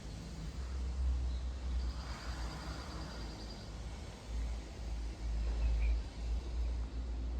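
Outdoor ambience with a low, uneven rumble like wind on the microphone. A small bird gives a quick, even trill about two seconds in, and a short chirp near the end.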